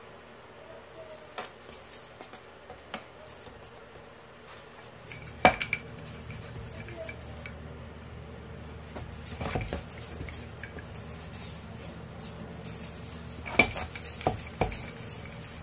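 Wooden rolling pin knocking and rolling on a plastic chopping board as a dough ball is flattened for a paratha, with metal bangles clinking on the wrist. Sharp knocks come about five seconds in and again several times near the end, over a low steady hum.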